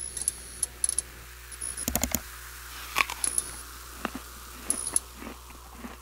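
End-card sound effects: short, high, twinkling chime tones come and go, and several sharp clicks sound about two and three seconds in, like a mouse click on a subscribe button. A faint steady low hum runs underneath.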